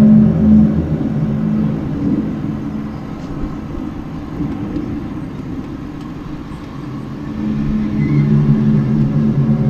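Low, steady droning hum outdoors that fades away about two seconds in and swells back near the end. It is the unexplained 'strange sound' that the person recording cannot identify.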